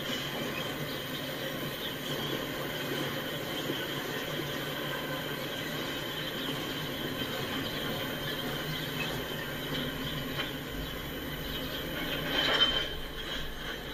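Freight cars of a slow-moving train rolling past, a steady rumble of wheels on rail with a thin high tone running through it. A short, louder burst of noise about twelve seconds in.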